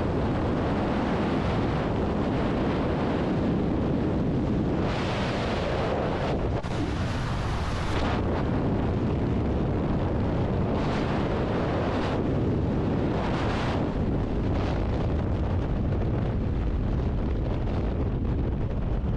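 Strong wind rushing and buffeting over the microphone in skydiving freefall, with the hiss swelling a few times along the way.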